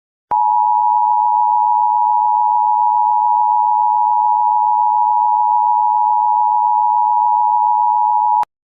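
Emergency Alert System attention signal: a steady two-tone beep (853 and 960 Hz sounded together) that starts a moment in, holds unchanged for about eight seconds, then cuts off abruptly. It is the alarm tone that announces an emergency warning message.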